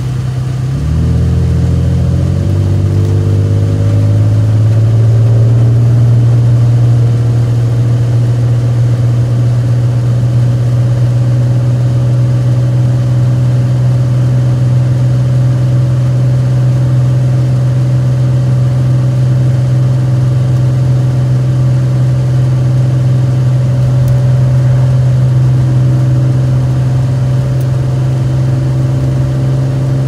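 Isuzu Trooper with a bad transmission, heard from inside the cabin while driving: a loud, low, steady drone with a stack of overtones. It climbs in pitch in steps over the first few seconds, then holds steady.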